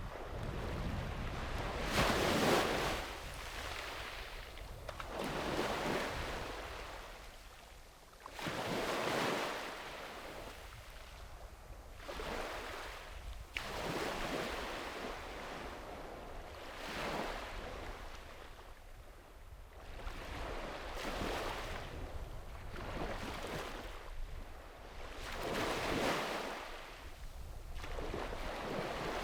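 Sea waves breaking and washing up on a sandy beach: a rush of surf swelling and fading every few seconds, the loudest breaks about two seconds in, near nine seconds and near the end.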